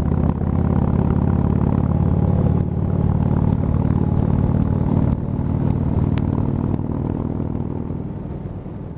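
Harley-Davidson V-twin motorcycle engine running steadily at highway cruising speed, with two small dips in level partway through, fading out near the end.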